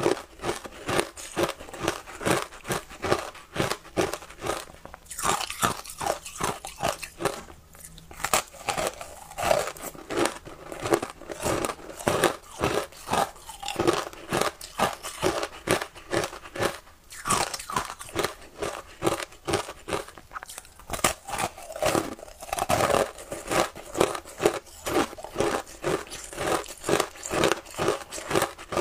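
Frozen ice coated in matcha milk powder being bitten and chewed: a quick, close run of crisp ice crunches, several a second.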